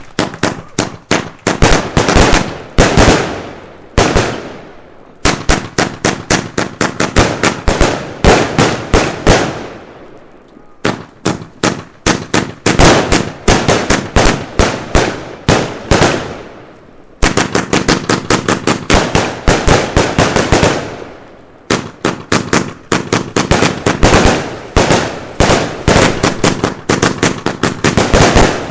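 Consumer firework batteries (F2/F3 cakes) firing rapid volleys of shots and bangs, several shots a second. They come in about five runs of a few seconds each, with breaks of about a second between runs.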